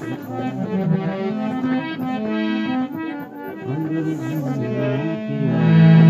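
Instrumental interlude of a Marwari devotional bhajan: a harmonium plays a melody in held, stepping notes, loudest near the end.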